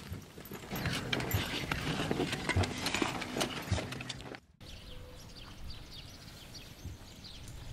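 A donkey's hooves and a man's footsteps on stony dirt ground, a busy run of steps and clops that cuts off sharply about four and a half seconds in. After the cut comes a quieter stretch with faint short high chirps.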